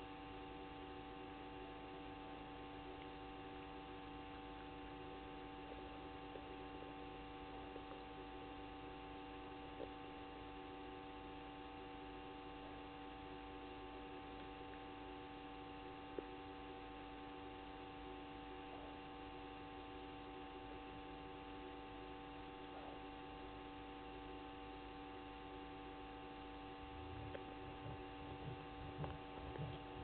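Steady electrical hum made of several steady tones, with a faint hiss and a couple of faint clicks. Near the end come low, irregular thumps.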